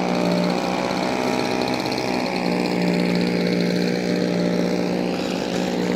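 Electric motor and propeller of a Flightline 1200 mm Spitfire RC model plane in flight, a steady drone.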